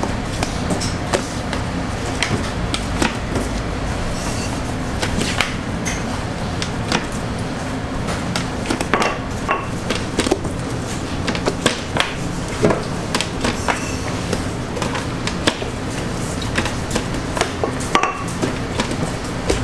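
Bakery kitchen work: irregular knocks, taps and clinks of tools, trays and pans, some ringing briefly, over a steady low hum.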